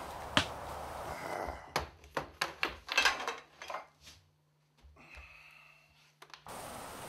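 A quick series of about eight sharp clicks or knocks over two seconds, followed by a near-silent stretch with a faint low hum.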